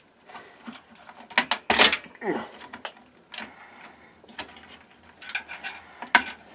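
Irregular plastic clicks and knocks, with a short scrape about two seconds in, from handling a desktop PC's Intel stock CPU cooler after its four push-pin fasteners have been released.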